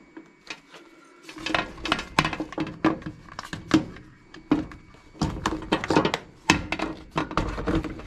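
Plastic Philips HD9318/21 electric kettle and its power base being handled: after about a second and a half, a quick run of clicks, knocks and rattles as the cord is pulled out from the base and the kettle is set down on it.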